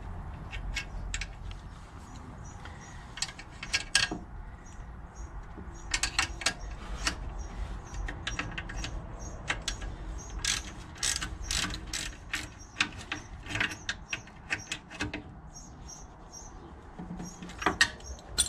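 Hand socket ratchet clicking in several short runs of quick clicks as bolts on the car's underside are turned.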